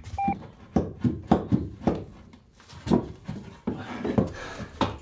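Irregular knocks and thuds, about a dozen in five seconds, with a brief high beep just after the start.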